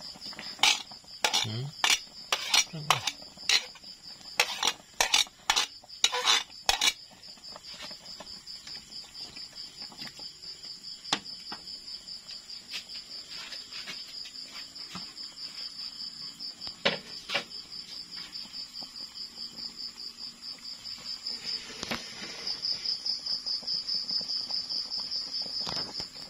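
Crickets chirping steadily in a high, pulsing trill. For the first several seconds there is a clatter of vegetables and utensils against the cooking pan, then only a few scattered clinks.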